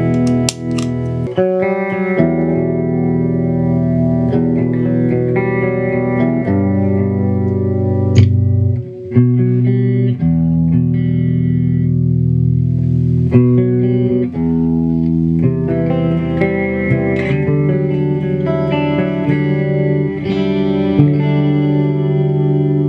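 Electric guitar on a clean tone playing ringing chords, the chord changing every second or two, with a few sharp pick attacks.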